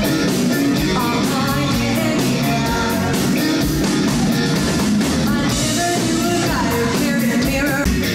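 Live rock band with a female lead singer, violin, electric guitar, keyboards and drums, recorded through a Canon DM-100 directional stereo microphone with automatic gain control on. The loudness stays flat, with dynamics squashed, drums distorted and the kick drum barely audible.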